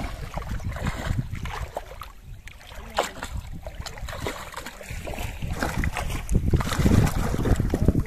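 Shallow muddy water splashing and sloshing around a bamboo polo fish trap as hands grope inside it for a trapped fish. The splashing is uneven, easing off about two seconds in and picking up again near the end, with wind rumbling on the microphone throughout.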